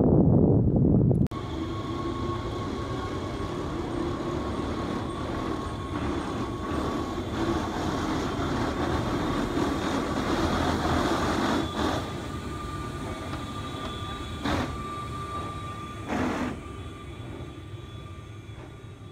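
Train running on rails: a steady rumble carrying a thin, steady high whine, with two short clunks near the end, fading over the last few seconds. The first second is a louder low rumble that cuts off abruptly.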